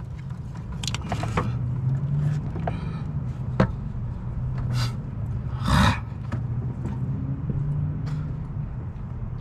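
Scattered clicks and scrapes of tools being handled over a low steady hum. About six seconds in there is a short burst of hiss.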